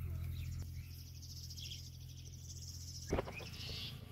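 Insects trilling outdoors, a fast, high, pulsing chirr, over a steady low hum. About three seconds in there is a sharp knock, the hum drops away and a louder trill carries on.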